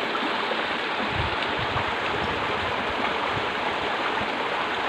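Fast-flowing water rushing steadily along a narrow concrete drainage channel.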